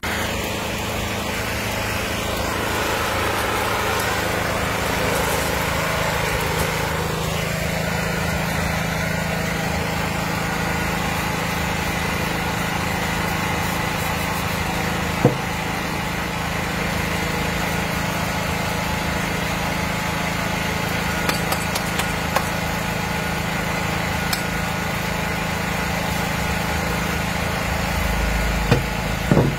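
Small portable petrol generator running steadily at a constant speed, with a couple of sharp metallic clinks about halfway through and near the end.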